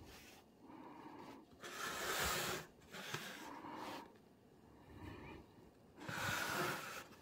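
A person breathing close to the microphone, with two loud breaths, one about two seconds in and one near the end, and softer ones between.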